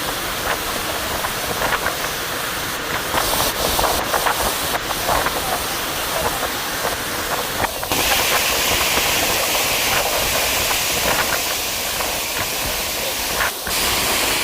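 Steady rushing of a waterfall's falling water, a dense hiss. It changes abruptly about eight seconds in and becomes brighter and slightly louder.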